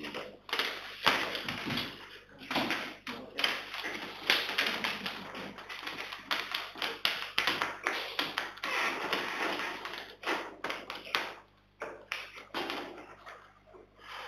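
Irregular taps and knocks in quick succession, with a short lull near the end.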